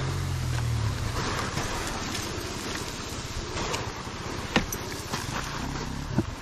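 Dirt bike engine dropped back to a low, rough tick-over, mixed with wind rumble on the microphone. There are a couple of sharp clicks, one about four and a half seconds in and one near the end.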